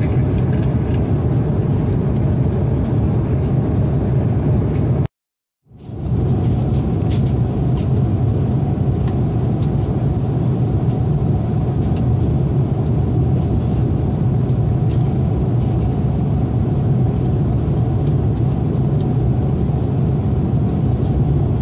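Steady drone of an Airbus A330-300 airliner cabin at cruise altitude, engine and airflow noise with a strong low hum. It cuts out completely for about half a second about five seconds in.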